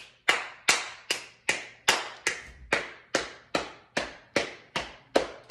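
Hand claps in a steady, even beat, about two and a half a second.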